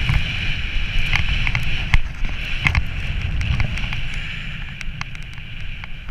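Edges sliding and scraping over firm snow on a fast downhill run: a steady hiss broken by scattered clicks and knocks as the board or skis chatter over bumps, with wind rumbling on the camera microphone. It eases off in the last couple of seconds.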